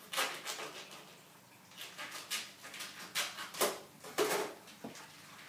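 Plastic packaging of a rack of pork baby back ribs crinkling and rustling in irregular bursts as it is cut open and handled.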